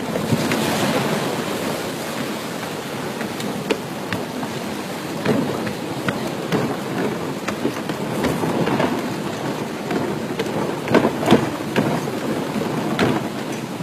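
Sea waves splashing and churning around a walkway over the water, with wind buffeting the microphone and scattered sharp knocks and clicks.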